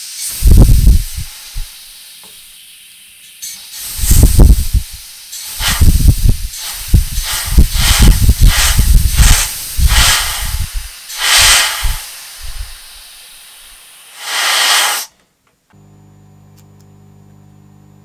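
Safety valve on a small brass model steam boiler blowing off steam at about 60 psi, loud hissing spurts about two a second for several seconds, then a last burst that cuts off sharply. The valve is relieving the boiler's full working pressure.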